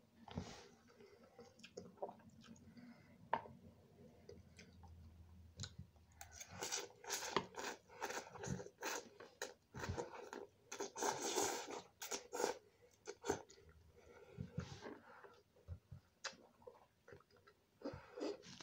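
Close-up chewing and slurping of noodles, with wet mouth clicks. It is sparse at first and busiest from about six to thirteen seconds in.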